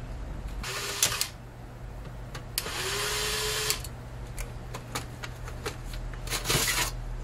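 Small electric screwdriver whirring in three short bursts: a brief one about a second in, a longer one with a steady whine around three seconds in, and another near the end. Between them come sharp clicks and knocks of the metal drive bracket as the optical drive is taken out of a slim PC case.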